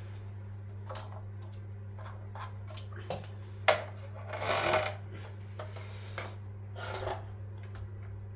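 Scattered clicks, taps and rubs as a metal DRO scale is handled and held against a milling machine's column. A sharp knock comes about three and a half seconds in, followed by a short scrape. A steady low hum runs underneath.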